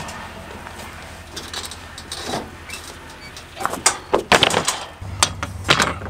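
Gypsum drywall sheets being lifted, flexed and slid over one another on a metal utility trailer: a run of knocks, slaps and scrapes, loudest and closest together around four to five seconds in.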